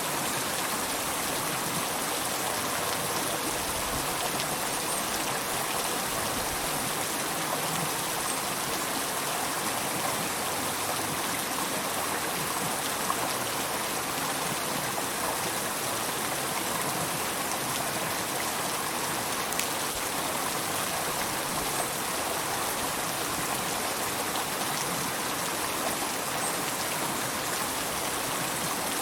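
River water flowing steadily over rocks, an even rushing and burbling with no change.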